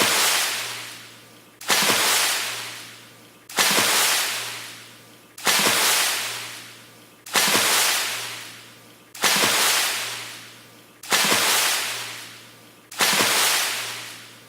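A fast water splash repeated over and over, about one every two seconds: each splash starts sharply, hisses, and fades out before the next.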